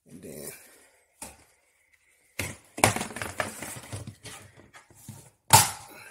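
A Rubbermaid plastic tub lid being handled and fitted onto the tub: a brief soft rustle, then a run of hard plastic knocks and rattles, the sharpest about three seconds in and again near the end.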